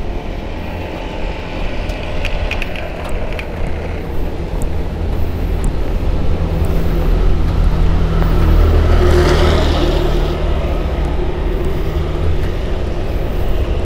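A motor vehicle running close by over a steady low rumble. The noise swells to a peak about nine to ten seconds in, as a vehicle passes, then eases off slightly.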